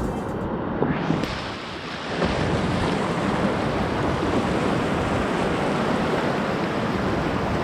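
Steady rushing of river water, as from rapids, filling in about a second in.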